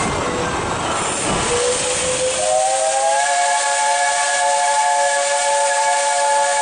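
Steam whistle of JNR 8620-class locomotive No. 8630 blowing one long blast. It starts as a single note about a second and a half in, and several more notes join it a second later, over the train's running noise.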